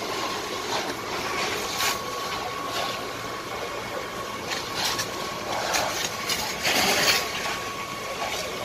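Fire hose jetting water onto a burning barn, a steady rushing noise with an engine running under it and a thin steady high whine. Scattered crackles and knocks, and a louder rush of spray about seven seconds in.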